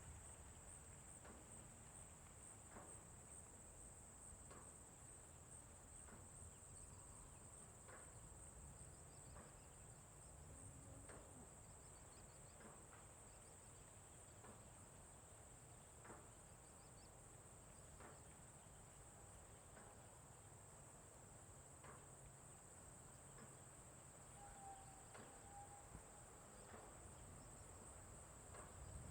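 Near silence with a faint, steady high-pitched chirring of crickets, and a few faint ticks.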